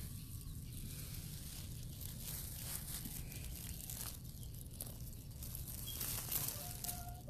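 Rustling and crackling in grass, with a steady low rumble underneath.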